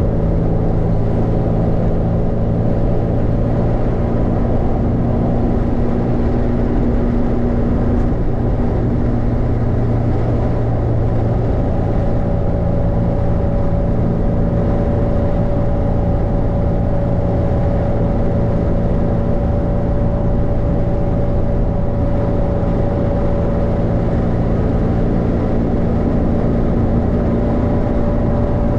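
Steady road and tyre noise inside a car cruising at highway speed, with a constant low engine and drivetrain hum.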